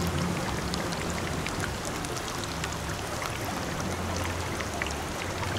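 Open wood cooking fire burning under a cast-iron pan: a steady hiss with scattered small crackles.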